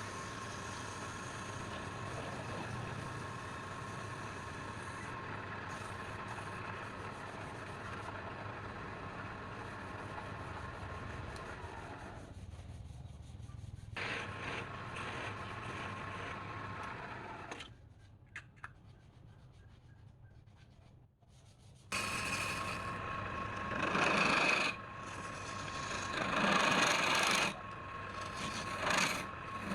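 A woodturning lathe running, with steady rubbing and scraping against the spinning wood. About two-thirds of the way through the sound drops away for a few seconds, then comes back louder in uneven strokes of rubbing.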